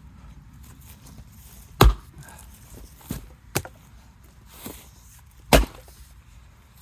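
Axe blows into knotty hardwood firewood: two heavy strikes about four seconds apart, with a few lighter knocks between them.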